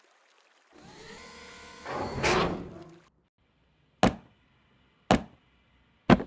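Cartoon sound effect of a sliding door rolling shut, building up to its loudest about two seconds in. It is followed by three short, sharp knocks about a second apart.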